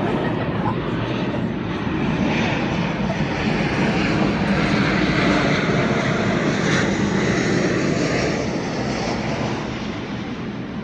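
Airplane passing overhead: a loud, steady engine noise that swells to a peak about halfway through and then fades.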